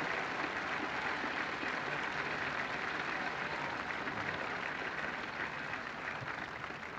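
Large crowd applauding, a steady mass of clapping that thins out toward the end.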